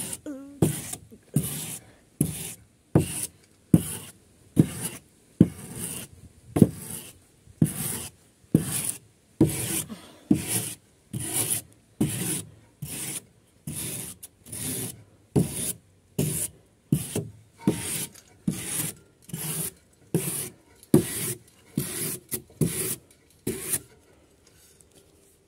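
Rasping strokes of a hand tool worked hard over weathered wooden wall boards, about three strokes every two seconds, stopping shortly before the end.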